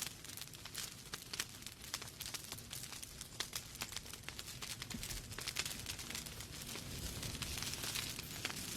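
Log fire burning in a fireplace: dense, irregular crackles and pops of burning wood over a steady low rush of the flames.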